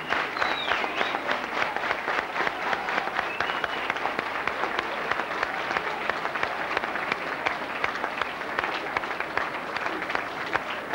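Crowd applause with steady rhythmic clapping, and a couple of high whoops in the first few seconds.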